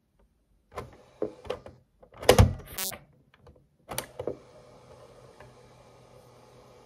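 Clicks and knocks of a cassette being loaded into an Auna RQ-132USB portable cassette player and the deck closed and started, the loudest thunk about two seconds in and a short scrape just after. From about four seconds a faint steady hum and hiss as the tape runs.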